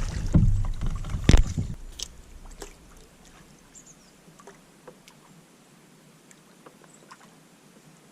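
Small paddled boat on a calm lake: a low rumble and one sharp knock in the first two seconds, then quiet with scattered small drips and clicks of water off the paddle.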